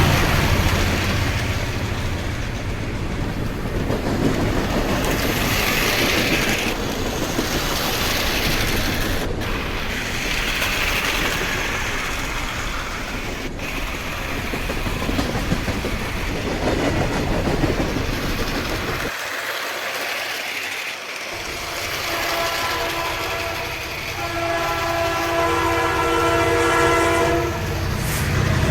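Dubbed full-size train sound effects: steady rolling rumble of a train on rails, then a long horn held on a chord of several tones for about five seconds near the end.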